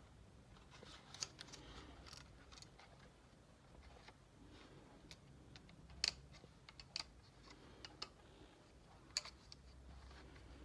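Faint, scattered plastic clicks and taps from a selfie stick tripod being handled, a few single clicks several seconds apart, the sharpest about six seconds in.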